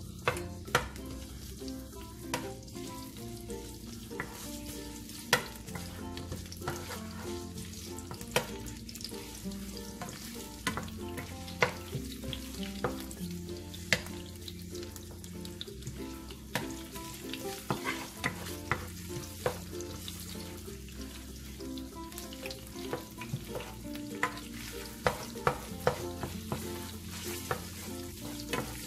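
Food sautéing in hot oil in a pan, a steady sizzle, while a utensil stirs it and knocks against the pan in sharp, irregular clicks every second or two.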